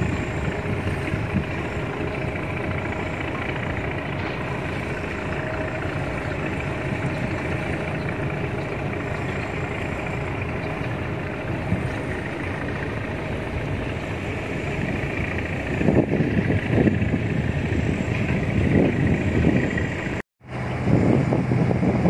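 Steady engine drone, with gusts of wind buffeting the microphone in the last few seconds; the sound drops out for an instant near the end.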